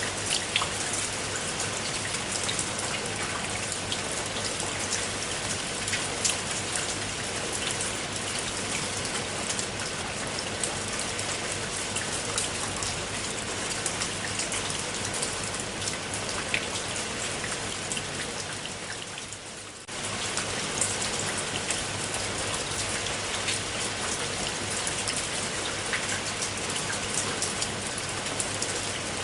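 Steady rain falling, an even hiss with many individual drops ticking. About two-thirds of the way through it fades down for a couple of seconds, then comes back in abruptly at full level.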